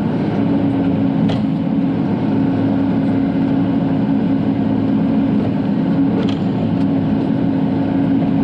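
Diesel engine of a Bobcat E42 mini excavator running steadily, heard from inside the cab, with a couple of light clicks.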